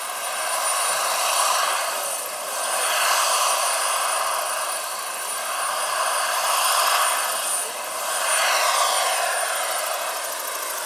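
Turbine-powered 1/6-scale RC Kaman K-Max model helicopter (Phal Power GP70 turbine, twin rotors) flying, with a steady high turbine whine over the rotor noise. The sound swells and fades every couple of seconds as the helicopter moves about.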